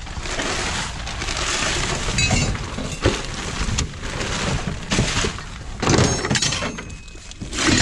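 Trash being shifted and rummaged through in a dumpster: broken glass clinking and crunching among boxes and debris, with sharper ringing clinks about two seconds in and again near six seconds.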